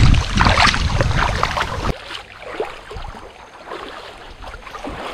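Wind buffeting the microphone outdoors, a heavy low rumble that cuts off abruptly about two seconds in, leaving much quieter background noise.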